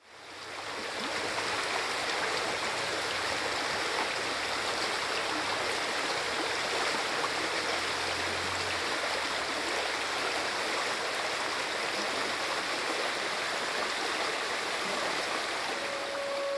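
Small woodland stream running over stones: a steady rush of flowing water that fades in over the first second.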